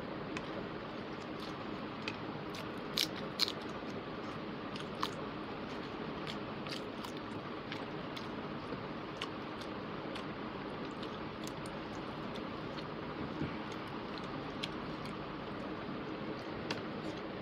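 Close-miked chewing of a mouthful of rice and chicken curry eaten by hand, with many small scattered clicks and two louder ones about three seconds in, over a steady background hiss.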